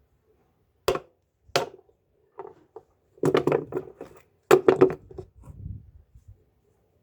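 Two sharp knocks, then two bursts of rattling clatter, hard objects knocking against each other, with a few fainter knocks after.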